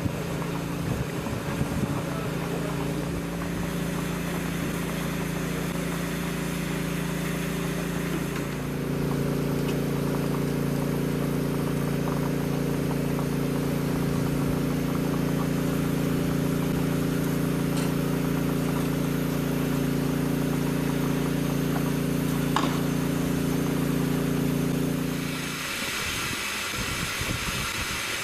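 An engine running steadily. About eight seconds in it steps up to a higher, louder note, and it stops a few seconds before the end, when a steady hiss takes over.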